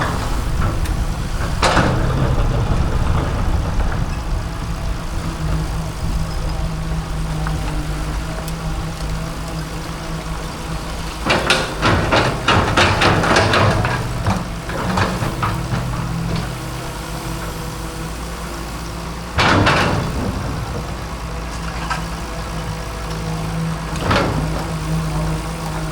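Excavator engine running steadily under load, with hard knocks and crashes of the bucket breaking up a concrete fence: one hit about two seconds in, a rapid cluster of knocks in the middle, and a sharp loud hit and a lighter one in the last third.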